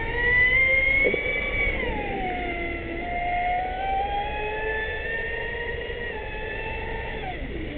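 Brushless motor of a Traxxas Spartan RC speedboat (Leopard 4082 2200Kv on 6S lipo) whining at high speed, its pitch rising and falling with the throttle as the boat runs and turns on the water. The whine is loudest in the first couple of seconds and drops sharply in pitch near the end as the throttle comes off.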